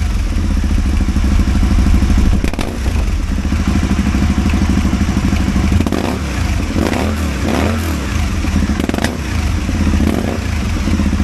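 Aprilia Caponord 1000's V-twin engine running and misfiring, its low pulsing beat uneven and dropping out in places, with a few sharp clicks.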